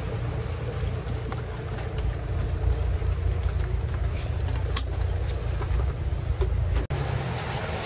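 Steady low rumble of street traffic, with a few light clicks of metal fittings as a beer-server hose and gas regulator are handled.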